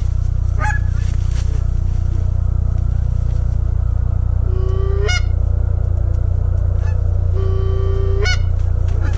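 Canada goose honks: a short one early, then two long held low notes that each break sharply upward, about five and eight seconds in. Underneath runs a steady low drone.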